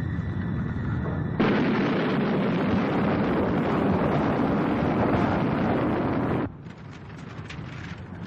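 Tense film score, then about a second and a half in a sudden loud rush of air like an airliner cabin decompressing through a blown-out window, lasting about five seconds. It cuts off abruptly to a quieter hiss near the end.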